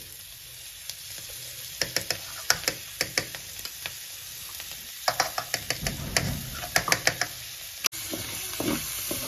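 A spoon clicking and scraping against a kadai and a steel bowl as ghee is scooped into boiled chana dal and stirred through it, over a low sizzle. The clicks come irregularly, many in quick runs, from about two seconds in.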